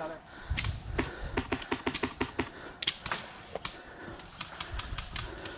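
Sharp shots from an HPA airsoft rifle (a VFC Avalon Saber with a Polarstar F2 engine), fired in quick semi-auto strings at about four to five a second, with a short pause in the middle.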